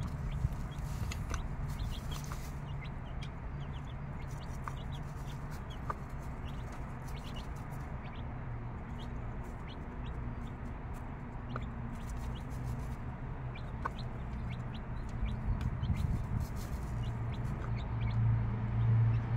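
Mother hen clucking low and steadily, growing louder near the end, with her six-day-old chicks peeping faintly in short high notes.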